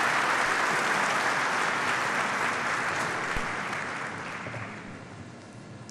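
Audience applauding, the clapping fading away over the last couple of seconds.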